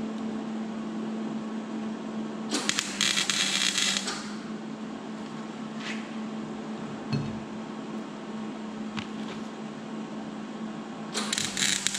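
Wire-feed (MIG) welder laying two short tack welds on thin muffler steel, each a crackling arc of about a second, the first a few seconds in and the second near the end. A steady low hum runs underneath.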